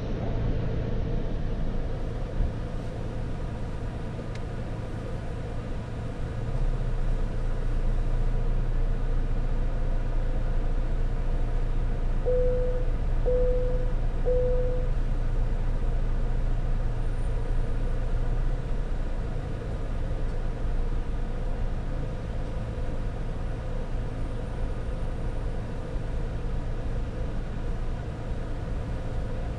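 A car idling, heard from inside its cabin: a steady low rumble that swells louder for about twelve seconds in the middle. Near the middle come three short beeps, about a second apart.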